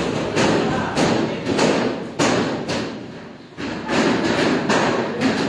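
Hand-pulled noodle dough being worked and slapped down on a stainless steel worktable: a run of dull thumps, two or three a second, with a short lull a little past the middle.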